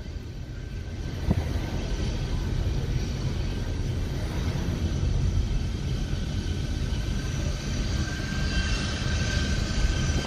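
Steady low road rumble inside a moving car's cabin, with the high, even whine of the Boeing C-17 Globemaster III's turbofan engines growing louder in the second half.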